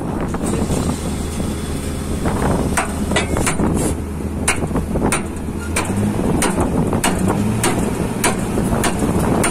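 Truck-mounted borewell drilling rig running steadily with a low engine hum, with sharp clanks coming about twice a second from a few seconds in. The engine note rises a little about six seconds in.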